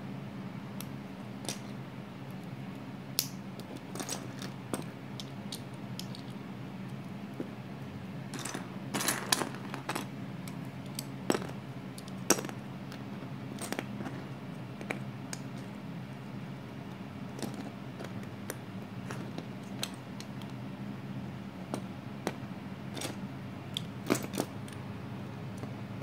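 Plastic Lego pieces clicking and clattering as they are handled, pressed together and set down on a wooden floor, in irregular sharp clicks with a few quick clusters. A steady low hum runs underneath.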